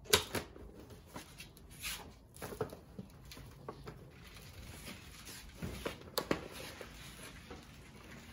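Handling noise from a loaded moving cart: irregular knocks and clatter with some rustling of the bags piled in it, the loudest knock right at the start and a few more sharp ones about six seconds in.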